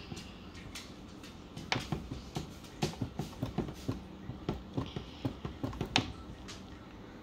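A bare hand wiping dry-erase marker off a whiteboard. It makes an irregular run of short rubbing squeaks and scuffs against the board surface from about two seconds in to about six seconds in.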